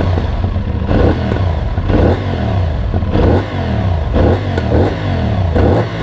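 CF Moto 450NK's 450 cc parallel-twin engine, with its 270-degree firing order, running through the stock exhaust. It is revved from idle in repeated quick throttle blips, about one a second, each rising and falling back.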